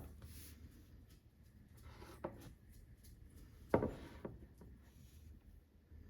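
Quiet handling sounds: a soft knock about two seconds in and a sharper knock a little later, over faint rubbing and rustling.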